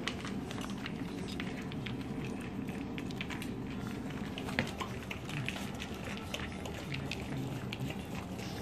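Small dogs eating rice and vegetables from plates: an irregular run of wet clicks and smacks from chewing and licking, with one sharper click about halfway through.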